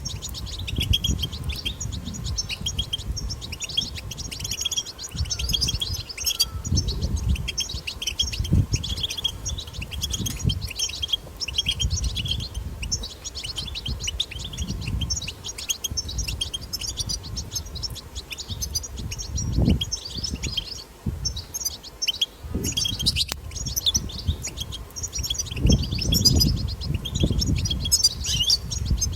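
European goldfinch twittering chatter, dense, rapid high chirps with hardly a break, the wild goldfinch call used to stimulate caged goldfinches to sing. A low rumble comes and goes underneath.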